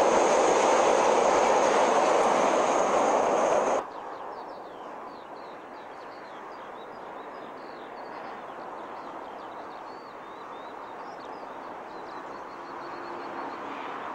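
A passing passenger train's carriages rush loudly over the rails, cut off abruptly about four seconds in. Then birds chirp over a faint distant rumble of a diesel-hauled train approaching.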